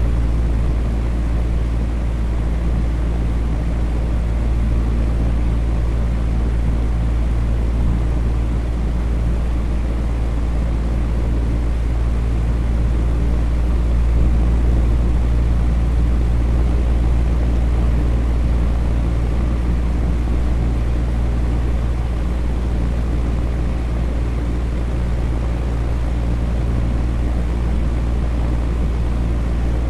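Electric fan running steadily: an unchanging rush of air over a low, constant motor hum.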